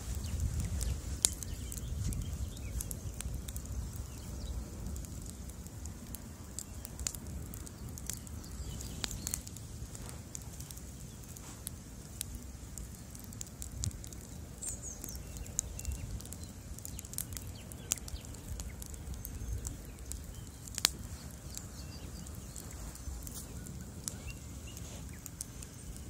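Bonfire of wooden pallets and logs burning: a steady low rush of flame with scattered crackles and sharp pops, a few of them louder, one about a second in and another well past halfway.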